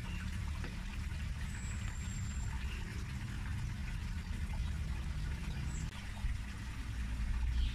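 A steady low mechanical hum, like a motor running in the background, with a brief thin high whistle about one and a half seconds in.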